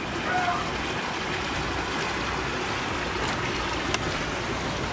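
Steady rushing of water, an even noise with no pauses.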